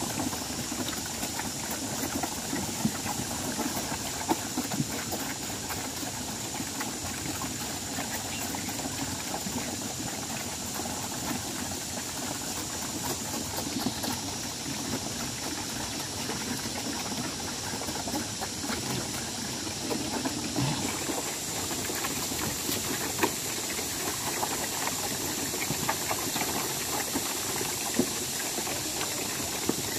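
Herd of black pigs eating wet feed from a long wooden trough: continuous slurping, smacking and chomping with many small clicks, steady throughout.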